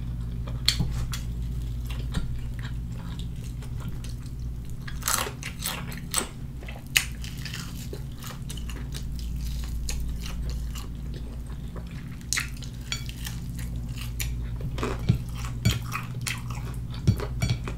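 Close-miked chewing and biting on crispy fried chicken: irregular crackles and clicks from the breaded coating and the mouth, bunched in short flurries with pauses between, over a steady low hum.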